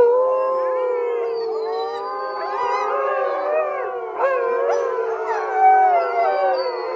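A chorus of canine howls: several long howls overlapping and gliding up and down in pitch over one another.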